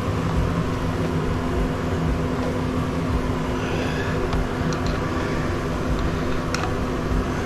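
Steady low mechanical hum of a running machine, with a few faint sharp clicks about four and a half and six and a half seconds in.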